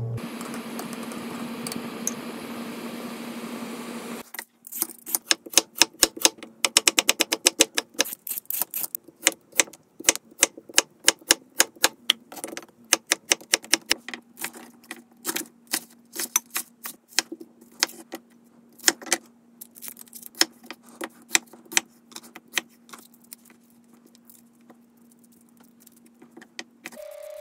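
Kitchen knife striking a wooden cutting board in fast runs of sharp taps, sped up in time-lapse, over a faint steady low hum. The taps start about four seconds in, after a stretch of steady hiss and hum, and thin out toward the end.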